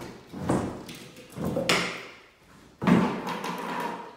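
Red plastic lid being worked off a tub of DAP 33 window glazing compound: three sudden plastic knocks and pops about a second apart, the last the loudest.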